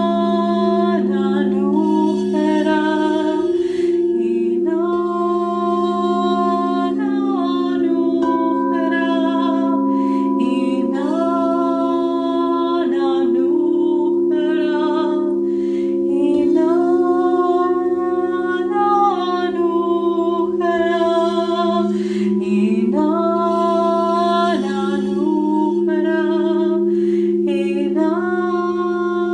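A woman singing wordless, long-held notes that step from pitch to pitch, over quartz crystal singing bowls ringing with steady, sustained low tones.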